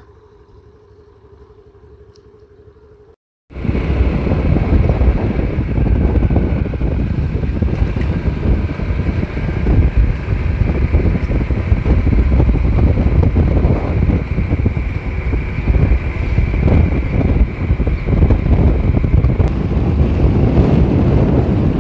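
Steady rush of wind and road noise from a vehicle driving along a road, heard from on board. It cuts in suddenly about three and a half seconds in, after a faint low hum.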